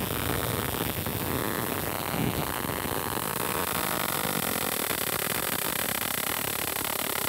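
Cheap high-voltage generator module arcing continuously between its two copper output wires: a loud, steady electrical hissing buzz of the spark discharge.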